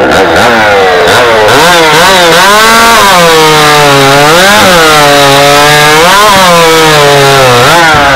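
Stock-class chainsaw running flat out through a competition cut into a log. The engine note sags under the load of the cut and rises briefly about four times.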